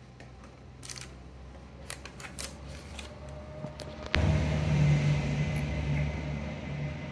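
Faint small clicks and rustles of dried figs and parchment paper being handled. About four seconds in, a sudden click is followed by a steady low hum.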